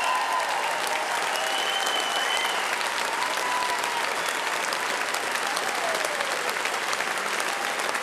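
Audience applauding steadily at the end of a dance number, with a few drawn-out calls from the crowd over the clapping in the first few seconds.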